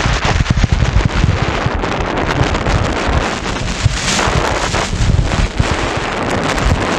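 Wind buffeting the microphone of a skier moving at speed, mixed with the hiss and scrape of skis carving on hard-packed groomed snow. A louder hiss of the skis comes about four seconds in.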